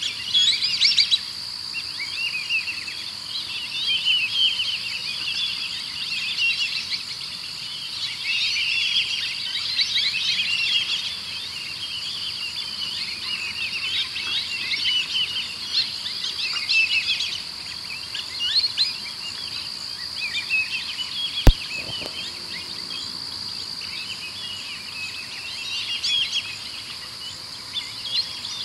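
Small songbirds chirping and twittering in busy bouts over a steady high-pitched insect trill, with a single sharp click about three-quarters of the way through.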